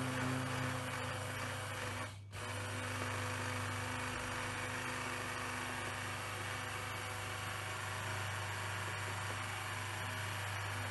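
Electric hand blender running steadily with its blade submerged, pureeing cooked lentil soup in a pot. There is a short break about two seconds in, then it runs on evenly.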